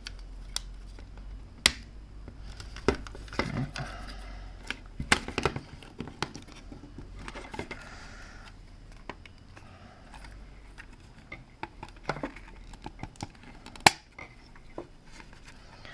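Irregular sharp clicks, taps and scraping of plastic and a circuit board being levered out of a battery charger's plastic case, with two louder snaps, one early and one near the end.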